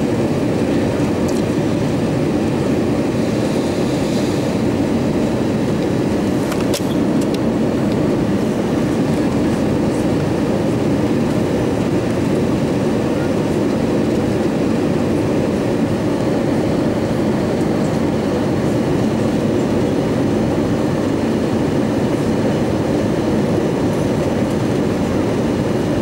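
Steady cabin roar of an Airbus A320-232 airliner descending on approach, airflow and its IAE V2500 engines heard through the fuselage, with a couple of faint clicks about seven seconds in.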